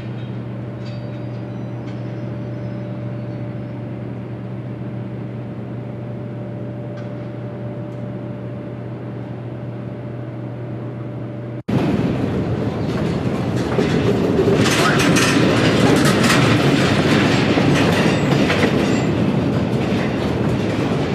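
Diesel switcher locomotive running steadily with an even engine hum. About halfway through it gives way to covered hopper cars rolling past close by, a louder clatter of steel wheels ticking over the rail joints.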